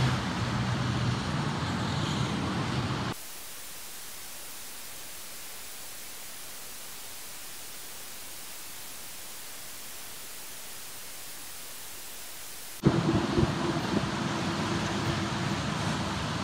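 Traffic on rain-soaked streets, tyres hissing on wet pavement. About three seconds in it cuts suddenly to a quieter, even hiss of heavy rain, which runs until near the end. Then it cuts back to wet-street traffic with a steady low hum under it.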